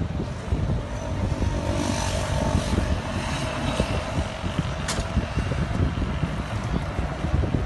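Wind buffeting the microphone over traffic passing on the road, with a vehicle going by between about one and four seconds in and a single sharp click about five seconds in.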